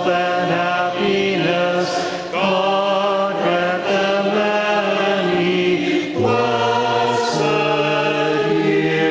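A group of cantors singing a Byzantine Catholic chant together in harmony, holding each note and moving in steps. The lowest voice drops to a deeper note about six seconds in.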